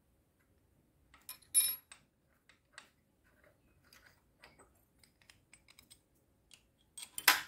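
Small metal parts being handled and set down on a workbench: scattered clicks and knocks, a loud clink with a short metallic ring about a second and a half in, and a louder clatter near the end.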